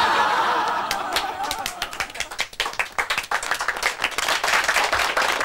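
A small group clapping their hands in quick, irregular applause. It opens with a brief loud burst of group voices that fades within the first second or two.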